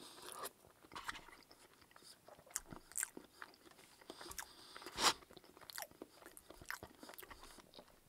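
Close-miked chewing and mouth sounds: soft wet smacks and clicks scattered irregularly, a sharper one about five seconds in.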